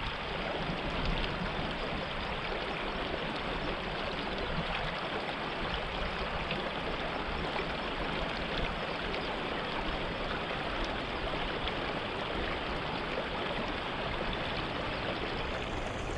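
Flowing river water rushing steadily.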